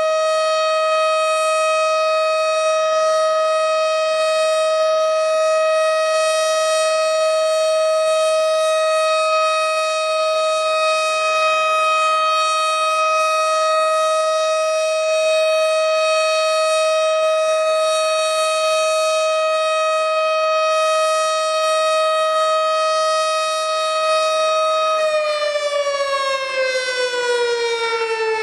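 Siren sounding for the 10 November moment of silence, holding one steady pitch for most of the time, then sliding down in pitch over the last three seconds or so as it starts to wind down.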